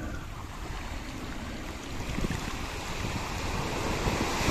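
Small sea waves washing and breaking on the shore, with wind rumbling on the microphone; the surf grows louder in the second half.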